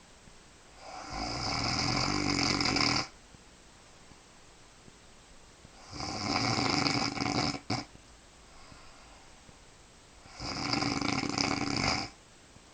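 A woman snoring in her sleep: three snores about four seconds apart, each lasting about two seconds, with quiet between them.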